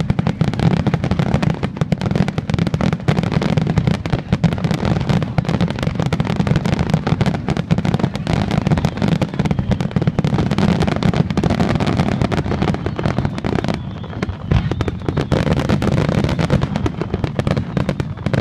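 Dense barrage of aerial firework shells bursting, a rapid, nearly continuous run of bangs, easing briefly about fourteen seconds in before building again.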